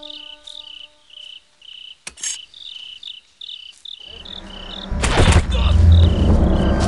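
Crickets chirping in a steady repeating rhythm. About two seconds in there is a short sharp swish. From about four seconds a deep rumble swells into a loud whoosh-like hit and then a heavy low drone.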